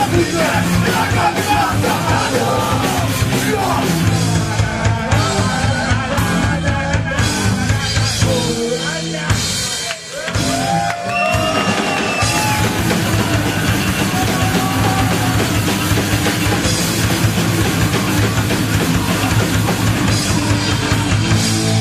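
Punk rock band playing live: a fast drum kit driving the band, with shouted vocals over it. About ten seconds in the band drops out for a moment, then comes back in.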